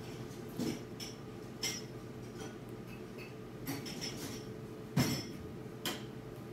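Soft taps and thumps of hands striking each other and the chest while signing in American Sign Language: about five separate contacts, the loudest near the end. A faint steady hum runs underneath.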